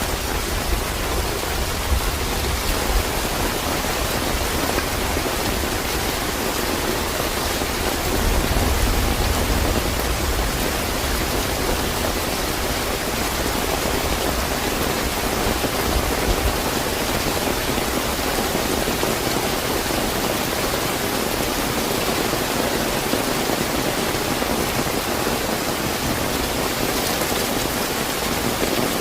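Steady, fairly heavy rain falling, an even hiss. A low rumble runs underneath through the first half, loudest about eight to ten seconds in, and dies away by about sixteen seconds in.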